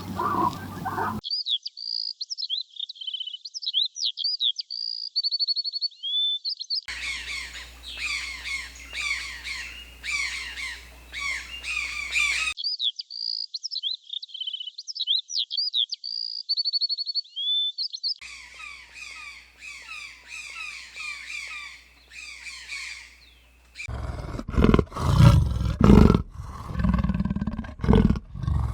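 A songbird sings a rapid phrase of high whistles and trills twice, alternating with stretches of many small birds chirping together. In the last five seconds, loud, deep animal calls take over.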